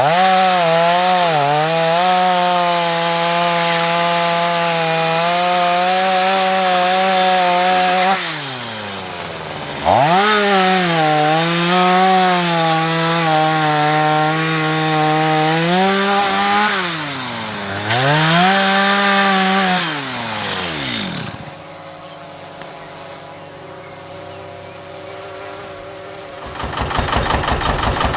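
Two-stroke chainsaw cutting into a tree: revving high, its pitch sagging as the chain bogs in the wood, dropping off about eight seconds in, then revving and cutting again before winding down about twenty-one seconds in. Near the end a different engine starts up with a fast, even chugging.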